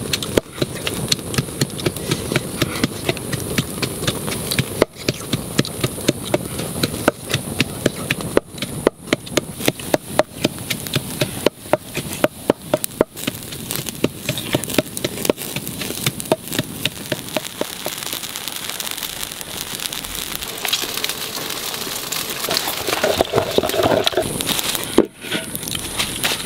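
Open wood fire crackling under a wok, with sharp irregular snaps and pops several times a second over a steady hiss. The snapping thins out in the last third.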